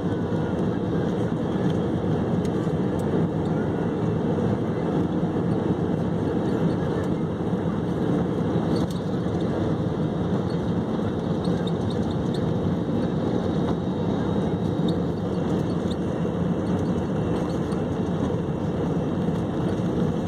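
Steady jet-engine and airflow rumble heard inside an airliner's cabin from a window seat over the wing, as the plane moves along the ground before takeoff.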